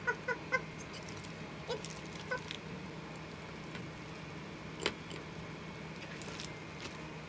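Lettuce leaves being torn apart by hand: soft crisp rustling and scattered small snaps, with one sharper snap about five seconds in, over a faint steady hum. A woman's short staccato "ah-ah-ah" at the very start.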